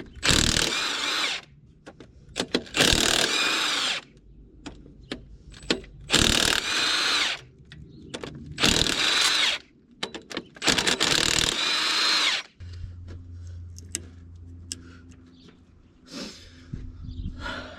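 Cordless power tool run with a socket in five bursts of about a second each, a whine rising in each, spinning out bolts from the engine's cylinder head. A steady low hum follows for the last few seconds.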